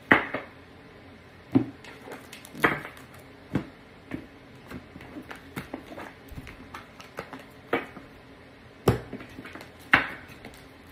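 A deck of tarot cards being shuffled by hand, with sharp taps and clicks at irregular moments as the cards are knocked together and set down on the table.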